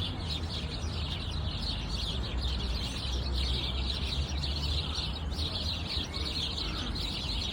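Many small birds chirping at once in a dense, unbroken chorus of short, quick high calls, over a steady low rumble.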